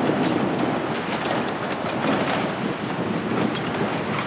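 Pearson 35 sailboat's mainsail flapping and rattling in gusty wind while it is lowered for a reef, a rapid, irregular fluttering over steady wind noise.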